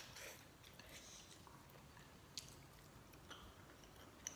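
Faint chewing of a mouthful of noodles, with a few soft clicks; otherwise near silence.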